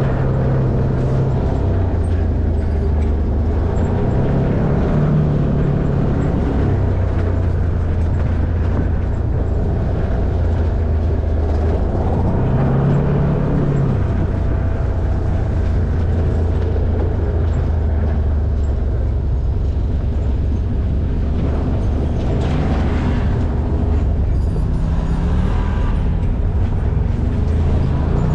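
Side-by-side off-road vehicle's engine running while driving a dirt trail, its pitch rising and falling as the throttle changes, over a steady rumble of the vehicle moving.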